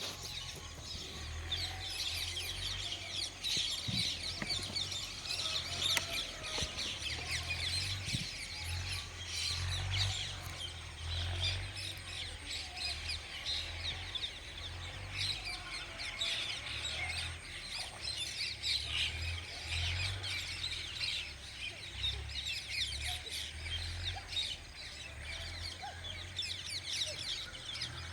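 Many small birds chirping continuously in a dense chorus of quick calls, with a low uneven rumble underneath.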